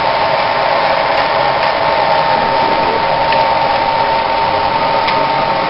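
Forge running: a steady rush of blown air with a constant high whine over it.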